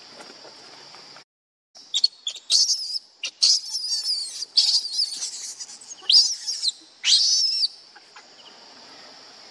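Infant pig-tailed macaque giving a run of shrill, gliding squeals and screams, starting about two seconds in and stopping shortly before the end, over a steady high hum. All sound drops out briefly about a second in.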